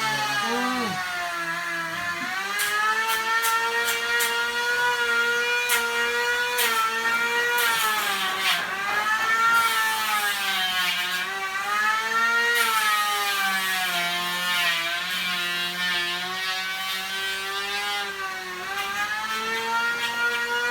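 Handheld electric power tool motor running continuously, its whine dipping and rising in pitch as the load on it changes, with a few sharp knocks along the way.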